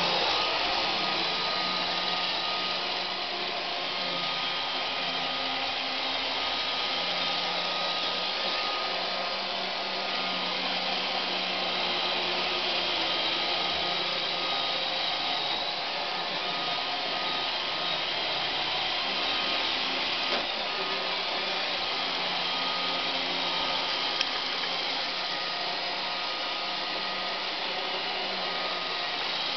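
Roomba robot vacuum running steadily: an even motor-and-brush noise with a thin steady whine, and two brief clicks in the second half.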